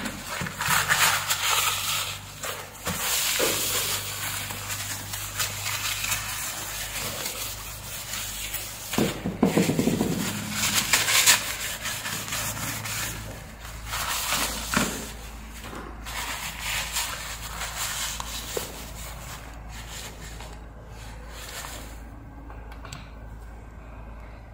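Sheet of paper rustling and crumpling as it is handled and gathered up, with a few light knocks along the way; it goes quieter for the last couple of seconds.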